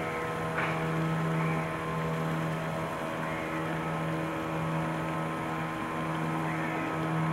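Small boat engine running steadily at a constant pitch, with no change in speed.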